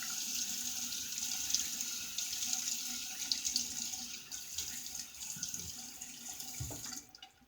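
Water running from a tap into a sink to wet the face before lathering, with small splashes; the tap shuts off about seven seconds in.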